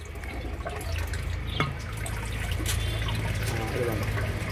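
Water from a hose pouring in a thin stream into a partly filled glass aquarium, splashing and trickling steadily into the tank water, over a steady low hum.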